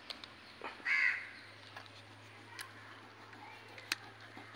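A crow caws once, loudly, about a second in, with a few sharp taps of a knife on a wooden chopping block around it.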